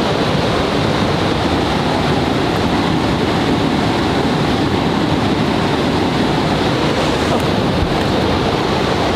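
Waterfall, a loud and steady rush of falling water.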